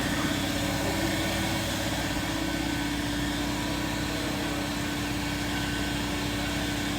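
Honda S2000's 2.2-litre F22C four-cylinder engine idling steadily, with an even pulse and a constant hum.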